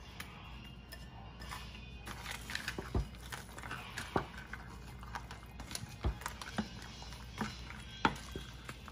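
Wooden spoon scraping dried chiles out of a bowl and stirring them into a stainless steel pot of tomatillos and tomatoes in liquid: irregular knocks and taps of the spoon against the pot and bowl, every second or two.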